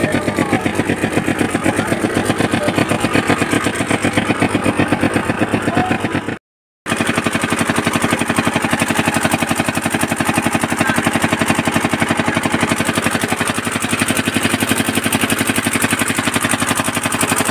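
Pump set engine running steadily at the borewell with a fast, even beat. The sound breaks off for a moment about six and a half seconds in, then carries on unchanged.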